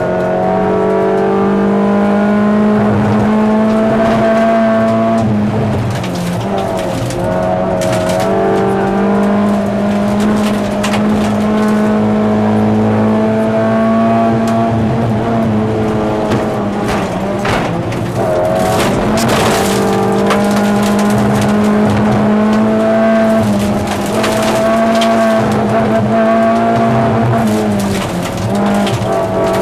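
Lada 2108 rally car's four-cylinder petrol engine heard from inside the cabin, held at high revs under hard acceleration. The revs drop briefly and climb again several times, at around 6, 17, 24 and 28 seconds, as the driver changes gear. Gravel knocks and rattles against the car now and then.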